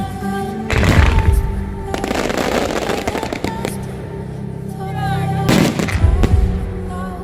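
Aerial fireworks bursting over music: a loud bang about a second in, a stretch of dense crackling, then another loud bang near the end.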